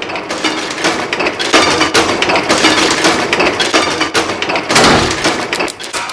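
Dense, rapid clatter of metallic clicks and knocks, coming thick and uneven throughout.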